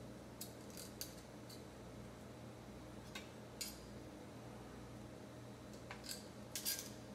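Knife and carving fork scraping and clicking against a metal platter as thin slices are cut from a roast chicken breast: a scattering of short scrapes, the loudest cluster near the end, over a faint steady hum.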